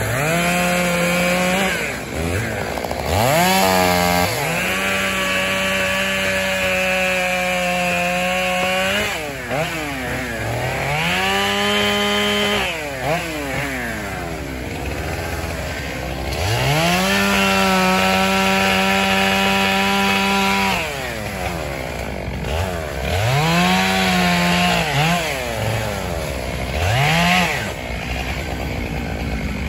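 Two-stroke chainsaw revved up to full throttle about six times, held high for one to several seconds each time, and dropped back to idle between.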